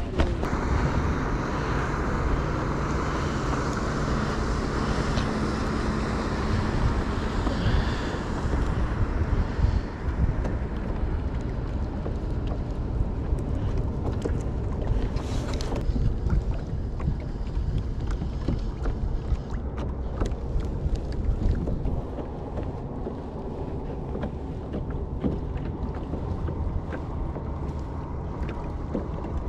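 Steady wind buffeting the camera's microphone on a fishing kayak: a low rumble with a rushing hiss. There is a brief louder rush about halfway through, and the sound eases a little in the last third.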